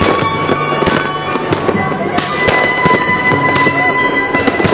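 New Year fireworks going off: sharp bangs about twice a second, in an irregular string. A steady high tone runs underneath throughout.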